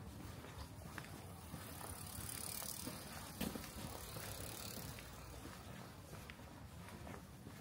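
A bicycle passing on a quiet street, with a hiss that swells for a few seconds and a short knock about three and a half seconds in, over scattered light clicks.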